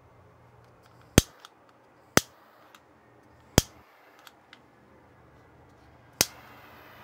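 Butane torch lighter's piezo igniter snapping four times, a second or more apart, with softer clicks of the button in between. After the last snap the torch catches, and its jet flame hisses steadily.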